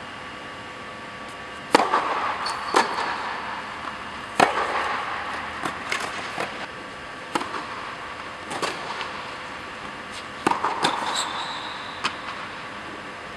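Tennis rally on an indoor court: a ball struck by rackets and bouncing, sharp pops about every second with a reverberant echo in the air-dome hall. There are a couple of brief high shoe squeaks on the court surface.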